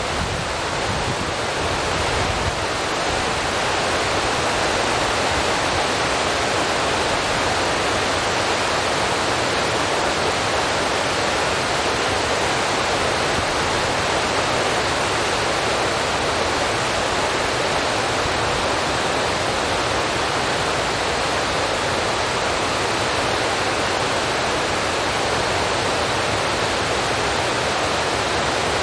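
Steady, even rushing noise with no pitch or rhythm, swelling over the first few seconds and then holding level.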